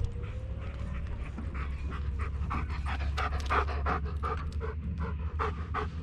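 A German Shepherd panting right at the microphone, with quick, even breaths at about three to four a second that grow louder from about halfway through.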